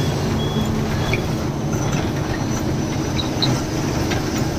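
Ashok Leyland diesel goods truck under way, heard from inside the cab: a steady drone of engine and road noise.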